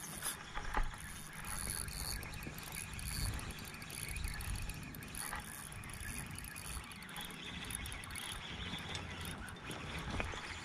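Spinning reel being cranked to retrieve a lure, its gears whirring with a fast run of fine ticks.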